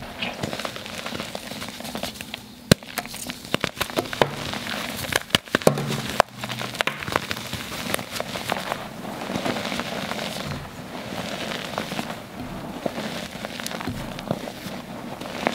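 Hands crushing and squeezing water-soaked dyed gym chalk: dense, irregular crunching and crackling. A few sharper snaps come about three seconds in and again around five to six seconds.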